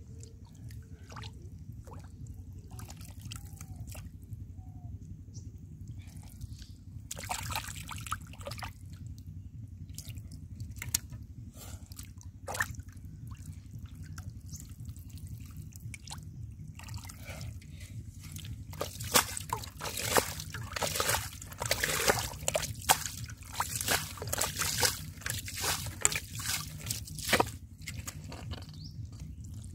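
Shallow water splashing and dripping as hands grope through it for fish: scattered splashes at first, then quick, busy splashing through much of the second half, over a steady low rumble.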